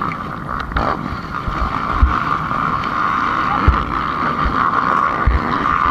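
HM CRE 250F dirt bike's four-stroke single-cylinder engine running steadily at low revs, with gusts of wind thumping on the helmet-camera microphone.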